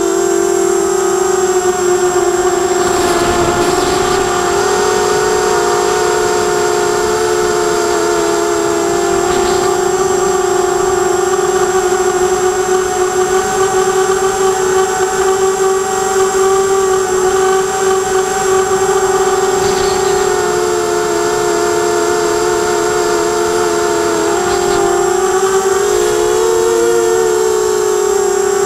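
Quadcopter's electric motors and propellers droning steadily, heard close from the onboard camera, with a thin steady high whine above. The pitch wavers and shifts briefly a couple of times near the end.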